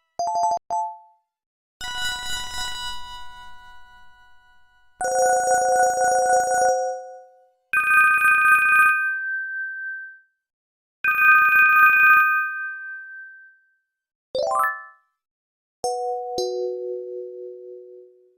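Short electronic Panasonic phone ringtones and alert tones playing one after another, each separated by silence. There are two quick beeps, then a fading chime and three held chord-like tones. Near the end come a fast rising run of notes and a tone that steps down between two notes.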